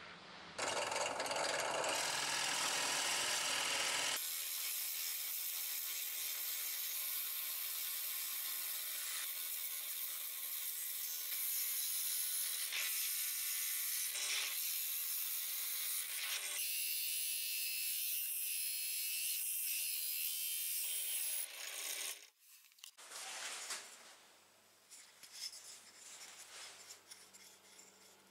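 Bench drill press running with a steady motor hum and the hiss of its bit boring into a pine board, in several cut-together stretches; it stops a little over twenty seconds in, leaving fainter rubbing and handling of wood.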